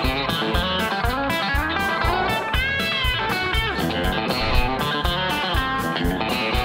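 Electric guitar playing a country chicken-pickin' line over a steady beat, with bent notes near the middle.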